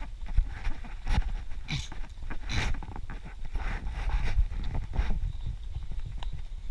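Running footsteps on a dirt forest trail, a quick run of footfalls, over the low rumble of a jostling camera and wind on the microphone, with two short hissy rushes about two seconds in.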